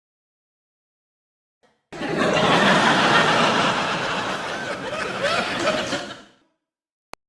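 Sitcom studio-audience laugh track: after about two seconds of dead silence, a crowd of people bursts into laughter together, carries on for about four seconds and dies away. A single short click comes near the end.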